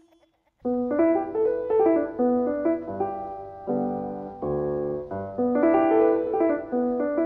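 Background piano music: a light melody of short notes with a held chord partway through, starting just over half a second in after a brief silence.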